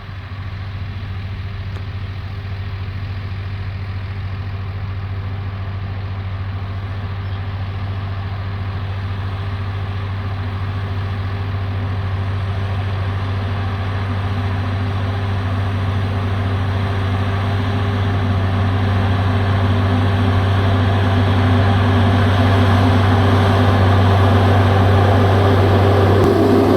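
Case IH Puma tractor engine running at a steady speed while baling hay, growing gradually louder.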